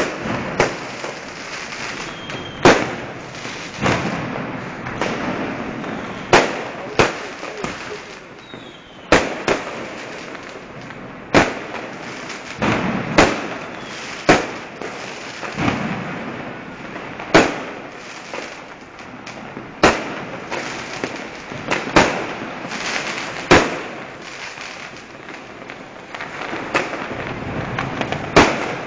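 Fireworks and firecrackers going off in the street: a sharp bang every second or two, about a dozen in all, over continuous crackling.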